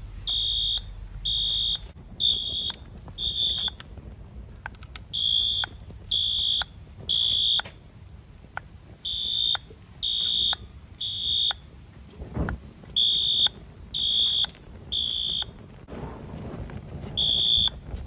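Fire-damaged Wheelock AS fire alarm horn strobe sounding its horn in the temporal-3 evacuation pattern: groups of three short, loud, high-pitched blasts about a second apart, with a pause of about two seconds between groups. The horn keeps working even though its plastic housing is charred and partly melted by fire.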